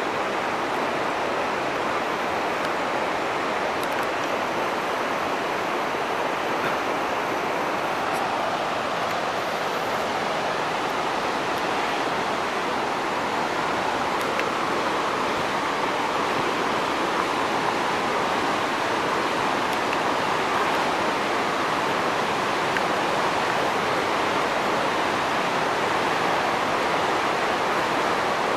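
Fast mountain river rushing over rocks: a steady, even noise of white water that grows a little louder toward the end.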